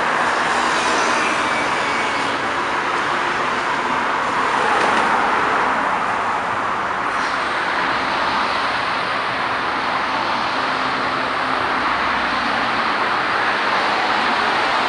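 Steady traffic noise heard from a moving vehicle: tyres on pavement and the hum of passing cars and trucks.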